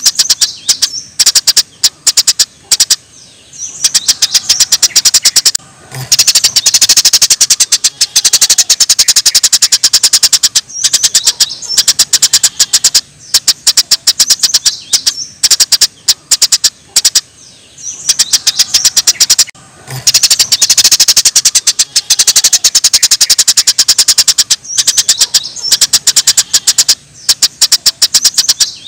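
Small songbird's rapid-fire song bursts ('tembakan'): very fast, high-pitched repeated notes in long dense runs with short pauses between them, over a faint bed of running water.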